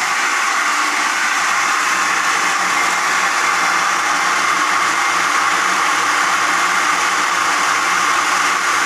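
Household water pump running steadily as it recharges the pressure system after the pressure has dropped to about 20, with water rushing from an open drain: an even, loud hiss over a low motor hum, unchanging throughout.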